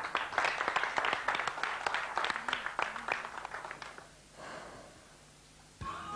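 Studio audience applauding for about four seconds, dying away. The instrumental intro of a song starts just before the end.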